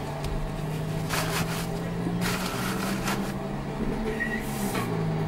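Ram pickup's diesel engine idling steadily, heard from inside the cab, with a few brief rushes of hissing noise over it.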